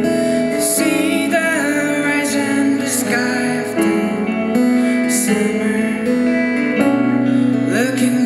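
Live acoustic band performance: two acoustic guitars played together under a man's sung lead vocal.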